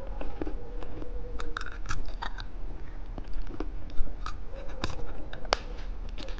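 Close-miked chewing of watermelon bubble gum: irregular wet clicks and smacks, a few of them sharper and louder.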